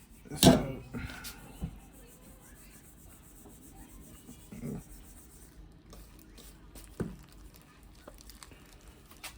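Raw chicken pieces being dredged and pressed in a bowl of seasoned flour: soft rubbing and patting, with a sharp knock about half a second in and a few lighter knocks later.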